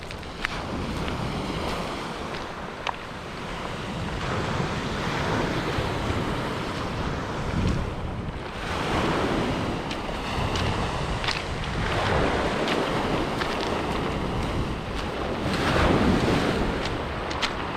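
Sea waves washing in and drawing back in swells every few seconds, with wind buffeting the microphone.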